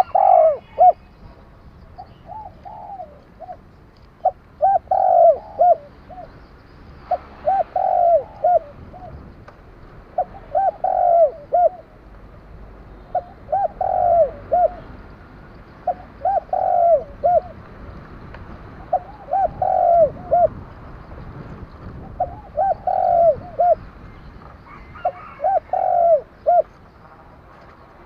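Spotted dove cooing, with the voice type Vietnamese dove keepers call 'đồng kim'. It repeats its multi-note coo phrase about every three seconds.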